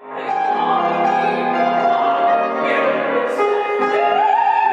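A soprano singing opera in full voice, holding long notes with vibrato and climbing higher near the end, over piano accompaniment.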